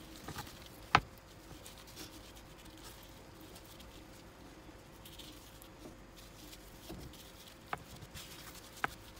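Gloved hands rubbing salt into a slab of pork belly on a bamboo cutting board: soft rustling of the plastic gloves against the meat, with a few sharp ticks, the loudest about a second in and two more near the end.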